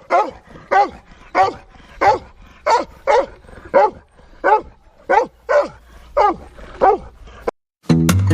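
A dog barking over and over, about three barks every two seconds, each bark dropping in pitch. The barking stops near the end.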